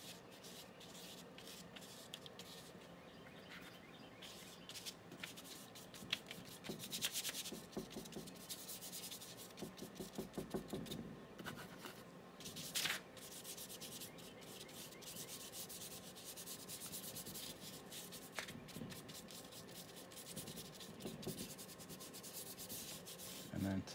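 Paintbrush bristles dabbing and scrubbing paint onto paper in short, repeated strokes, faint.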